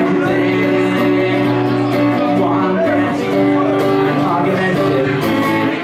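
Acoustic guitar strummed steadily in a live solo performance, its chords changing every second or so.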